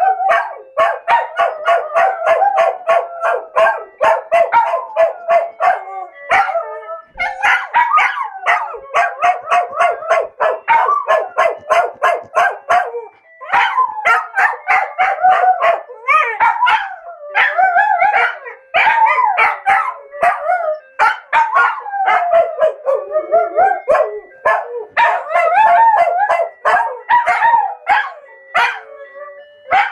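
Two dogs howling together at a phone alarm ringtone, their long calls wavering up and down in pitch with brief breaks. The ringtone's steady rhythmic beat runs underneath.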